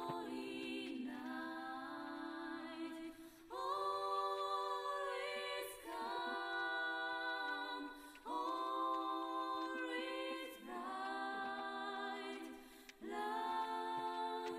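Background a cappella vocal music: voices singing long held notes in phrases of about two seconds, with short breaks between them.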